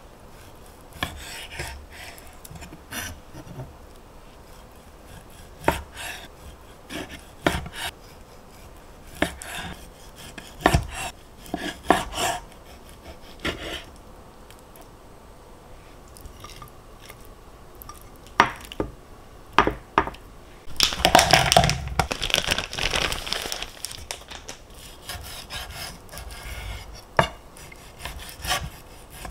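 Kitchen food-prep handling sounds: scattered knocks and clicks of utensils and dishes against a wooden cutting board, with a few seconds of dense scraping and rubbing about two-thirds of the way through.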